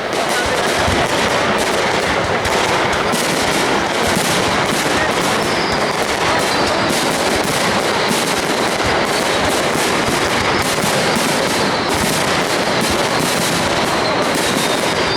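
Aerial fireworks bursting in a dense, continuous barrage: rapid crackling reports overlapping with no pause, loud throughout.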